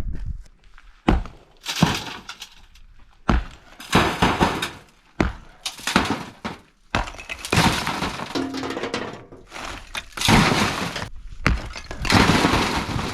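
Cinder block wall being knocked down by hand: about ten irregular heavy hits and crashes, each followed by the clatter of broken block and rubble falling.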